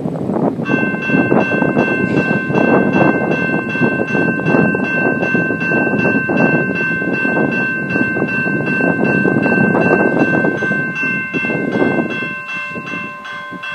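Railroad level-crossing warning bell ringing in rapid, even strokes, the sign that the crossing is active for an approaching train. It starts just under a second in, over a loud, uneven rush of noise, and a lower steady tone joins near the end.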